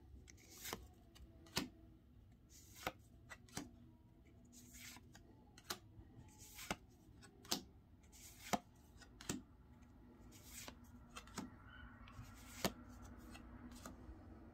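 Pokémon trading cards being flipped through one at a time in the hands: a quiet series of crisp card clicks and slides, roughly one a second, as each card is moved from the back of the stack to the front.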